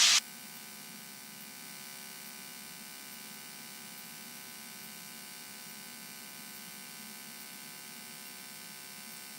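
Cessna 172N's four-cylinder engine and propeller droning steadily at reduced power on the landing approach. It is heard faintly through the cockpit intercom feed as an even hum with many fixed tones.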